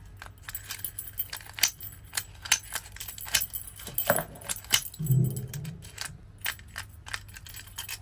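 Clicks, clinks and rattles of a large metal mortise lock with a brass cylinder and its key being handled and turned over, with rustling of the plastic packing around it.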